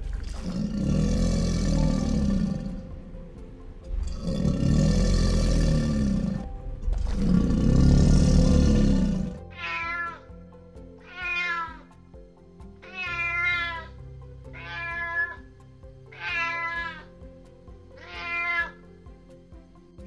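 An American alligator bellows three times, each call a long, deep rumble of about two and a half seconds. About ten seconds in, a domestic cat meows six times, each meow short and rising then falling in pitch. Background music plays underneath.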